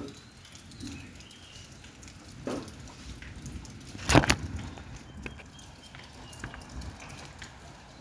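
Quiet outdoor ambience with a few faint high chirps, and one loud, sharp double knock about four seconds in.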